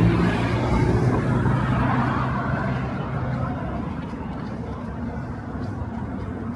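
A motor vehicle's low engine hum passing close by and fading away over the first three seconds or so, leaving a steady hum of street noise.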